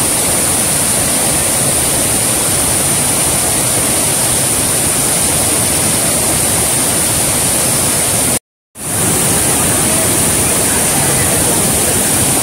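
Steady rush of water tumbling over rocks in the overflow stream below a reservoir spillway. It breaks off for a moment about two-thirds of the way through, then carries on just as steady.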